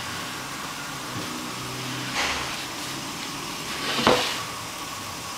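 Steady background hum and hiss, broken by a short rustle about two seconds in and a louder knock about four seconds in.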